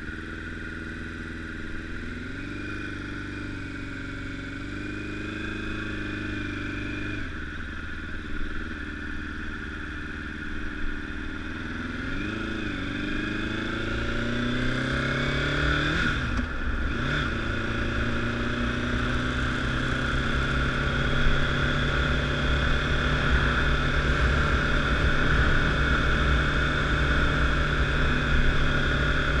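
Honda CBR1000RR's inline-four engine running on the road, its note rising and falling with the throttle through the first half. About halfway through the note briefly drops, then it settles into a steadier, higher note that grows louder toward the end.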